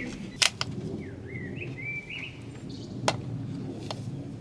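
Two sharp clicks about two and a half seconds apart, from hand work on the engine parts, with a bird chirping in the background between them.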